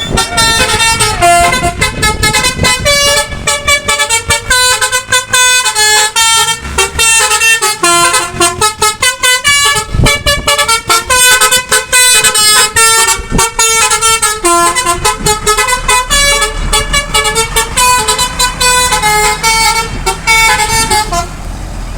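Indonesian bus 'telolet basuri' musical air horn playing a fast tune of short stepped notes, cutting off about a second before the end.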